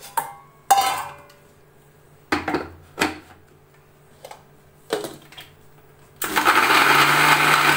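Steel bowl and stainless steel mixer jar clanking a few times as lemon pulp is tipped in and the jar is set on its base. About six seconds in, a Microsmart electric mixer grinder starts and runs steadily, grinding boiled lemon pulp.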